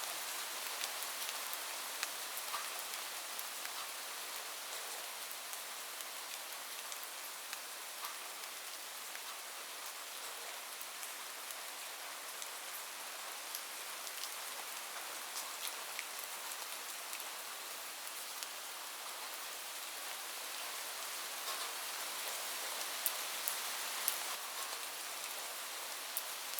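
Steady rain falling on a roof: an even hiss with scattered sharp, close drop impacts.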